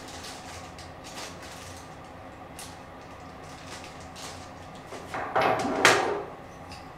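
Clear plastic packaging rustling and crinkling as small parts are handled, with a louder crackle and a sharp click about five to six seconds in.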